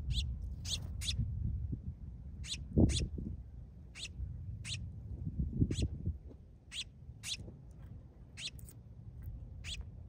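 House finches giving short, high chirping call notes, about a dozen at irregular intervals, over a low rumble. A dull thump comes about three seconds in and another near six seconds.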